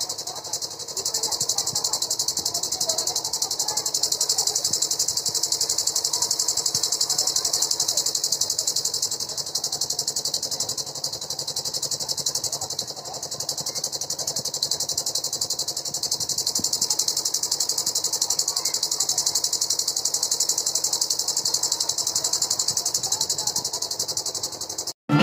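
Steady, high-pitched chirring of night insects, such as crickets, with a low murmur of crowd voices underneath.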